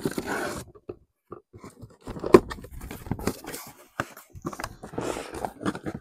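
Cardboard box and packaging being opened and handled: irregular rustling and scraping, with a sharp knock a little over two seconds in.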